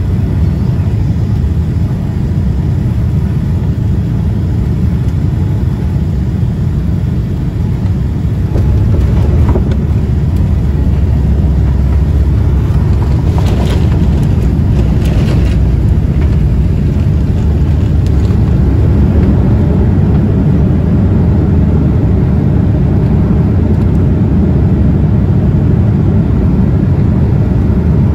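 Cabin noise in a Boeing 787-10 during landing: a loud, steady rumble of the engines and rushing air that grows louder about nine seconds in as the jet touches down and rolls out, with a few knocks and rattles a few seconds later.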